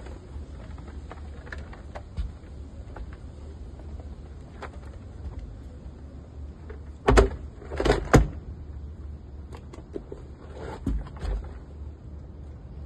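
Heavy rubber car floor mats being handled and pulled apart, with scattered small clicks and rubbing and three loud knocks or scrapes about seven to eight seconds in. A steady low rumble runs underneath.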